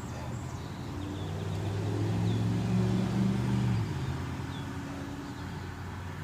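A low engine hum, like a motor vehicle running, swelling louder from about two seconds in and dropping off abruptly just before four seconds.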